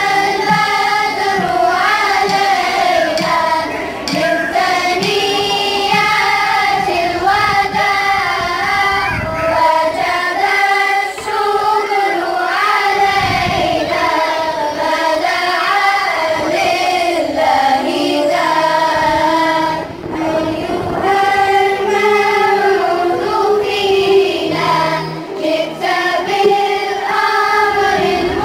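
A children's choir singing a song with electronic keyboard accompaniment.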